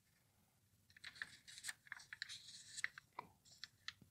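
Faint rustling and crinkling of a glossy catalogue page being turned and smoothed flat by hand: a scatter of small papery crackles starting about a second in.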